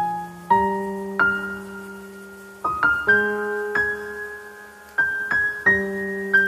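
Background music: slow, gentle piano, single notes and chords struck every second or so, each ringing out and fading.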